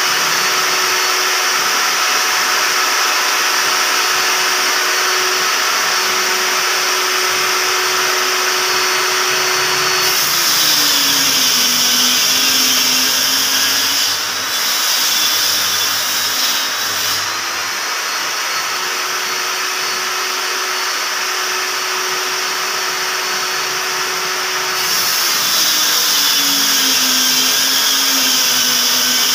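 Table saw built into a wooden bench running steadily. About ten seconds in and again near the end its pitch drops and a harsher cutting noise rises as a laminated board is fed through the blade: the motor is slowing under the load of the cut.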